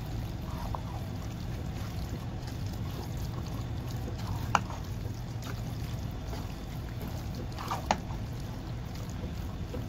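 Wooden spatula stirring penne through thick béchamel sauce in a nonstick pan, a wet, sloshing stir over a steady low hum. The spatula knocks sharply against the pan twice, about four and a half and eight seconds in.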